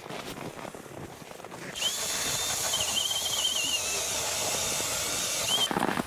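Powered ice auger boring a hole in the ice: a steady hiss of cutting with a thin, wavering motor whine. It starts suddenly about two seconds in and stops shortly before the end.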